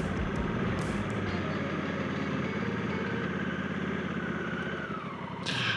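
Honda CRF1100L Africa Twin's parallel-twin engine running at low road speed, with a steady thin whine that drops slightly in pitch about five seconds in as the bike slows. A short rush of hiss comes near the end.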